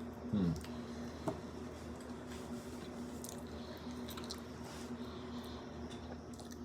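Wet, squishy mouth sounds of someone chewing food, with small smacks and clicks, over a steady low hum.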